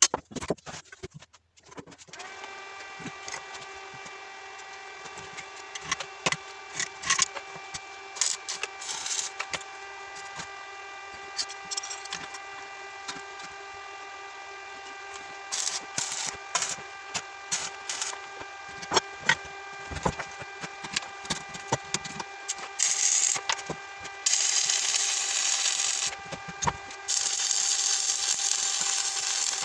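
A small power tool's motor starts about two seconds in and runs at a steady pitch, with scattered clicks and short bursts of cutting or grinding noise as it works material; the cutting becomes longer and louder near the end.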